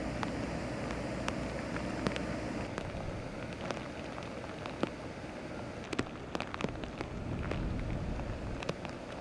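Rain falling, with irregular sharp drop ticks close by over a steady wash of noise.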